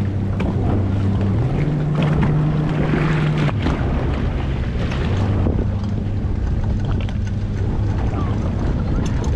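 Boat engine running steadily, its pitch stepping up about a second and a half in and dropping back around three and a half seconds, with wind buffeting the microphone.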